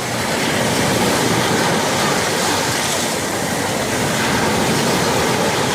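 Sea waves washing onto the shore in a steady, loud rush that swells and eases slightly.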